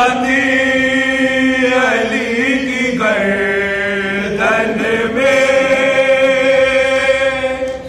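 Unaccompanied male singing of a marsiya, a Shia lament for Fatima, chanted in long held, slowly gliding notes. No instruments.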